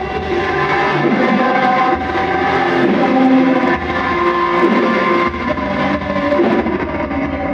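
Live rock band playing loudly, with guitar prominent over a pulsing bass and drums.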